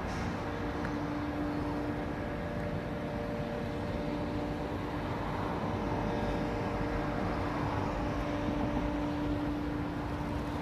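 An electric motor running steadily with a constant hum.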